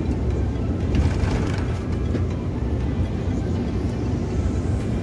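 Steady low rumble of engine and tyre noise inside a moving coach on the road, with a brief swell of hiss about a second in.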